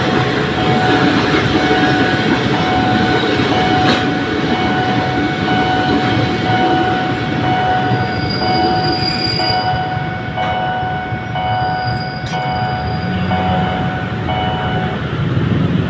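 A train running through a road level crossing: steady wheel-and-rail noise with a sustained tone. In the second half a tone pulses on and off about twice a second. The train's noise thins toward the end.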